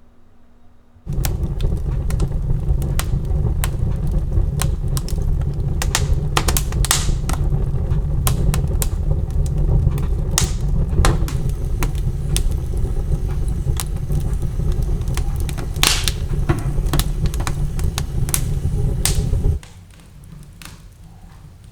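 An electric appliance switched on about a second in, running with a loud steady low rumble and irregular clicks and rattles, then switched off near the end.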